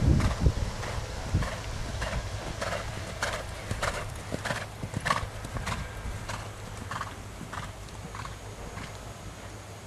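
Hoofbeats of a ridden horse moving on a sand arena, an even rhythm of about three beats every two seconds. A loud low rumble comes right at the start.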